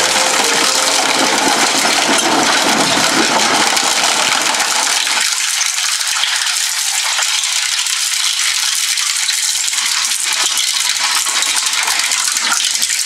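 Twin-shaft shredder tearing apart a PlayStation 4 console: dense crackling, snapping and rattling as the plastic casing, fan and circuit board are broken up between the cutter discs. The sound is mostly high and sharp, and its deeper part drops away about five seconds in.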